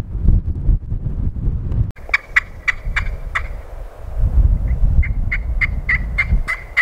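Turkey yelps in two runs of short, sharp notes, about four a second, the second run longer than the first. They follow about two seconds of low rumbling of wind and movement.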